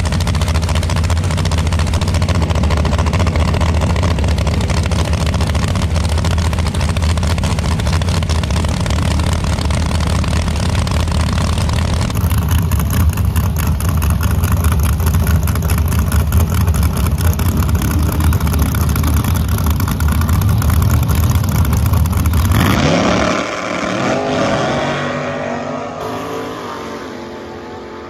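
Front-engine dragster's V8 with open zoomie headers running loudly and steadily at the line, alongside a second dragster. Near the end the engines rise and fall in pitch and the sound pulls away and fades as the cars head off down the track.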